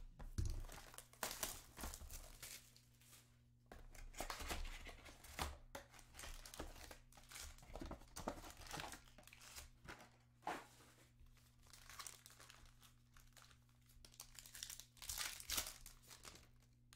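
A sealed trading-card hobby box being opened, then its card packs' wrappers crinkling and tearing as one is ripped open by hand. The rustling comes in irregular strokes, some louder than others.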